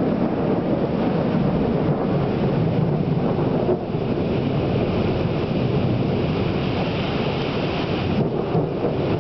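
Heavy rain pouring steadily in a thunderstorm, falling on the street and a parked car.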